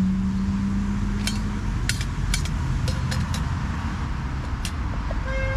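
Aluminium Trangia cook-set pans and lids clinking as they are handled and stacked on the stove, about a dozen light metal clinks, over the steady rumble of passing road traffic.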